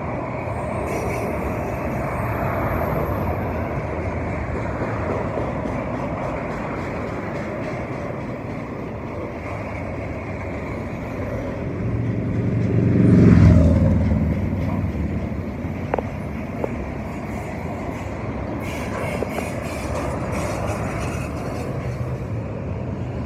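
Union Pacific double-stack intermodal freight train rolling past: a steady rumble and clatter of steel wheels on rail. It swells to a loud peak about halfway through, with a falling pitch, then two sharp clicks follow a couple of seconds later.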